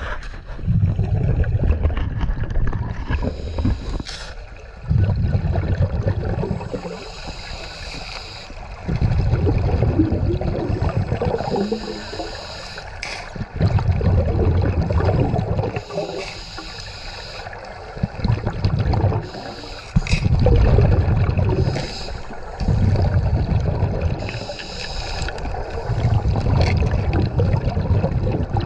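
Underwater breathing and bubble noise: loud rumbling bursts of exhaled air bubbles alternating with a quieter hiss, in a cycle about every four seconds.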